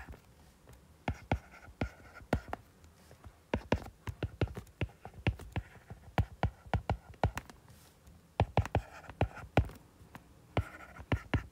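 Stylus tip tapping and scratching on a tablet's glass screen while equations are handwritten: an irregular, quick run of light clicks, with a short pause about two-thirds of the way through.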